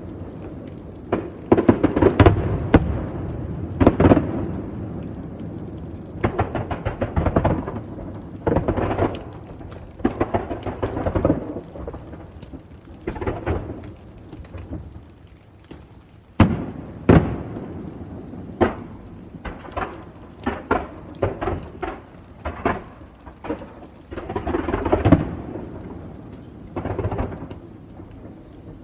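Aerial firework shells bursting one after another at irregular intervals, each bang trailing off in a rolling echo. A quick run of sharp bangs comes about two-thirds of the way in.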